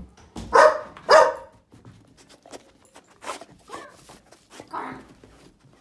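A dog barking: two loud barks about half a second apart near the start, then a few quieter ones.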